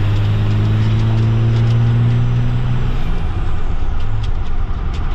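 12-valve 5.9 Cummins turbo diesel under way, a steady deep engine drone that eases off about three seconds in.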